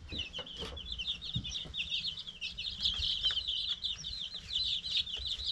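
A brood of baby chicks peeping together: many short, high, falling peeps overlapping without a break.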